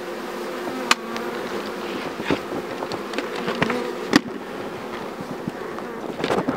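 Honeybees swarming around an opened karakovan hive during the honey harvest, buzzing in a steady hum of several overlapping pitches, with a few sharp knocks.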